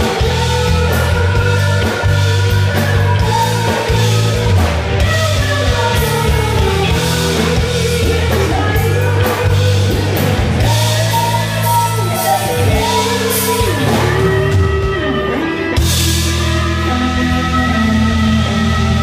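Live rock band with a female lead singer, singing over electric guitar, keyboards and drums. The music plays loudly and without a break.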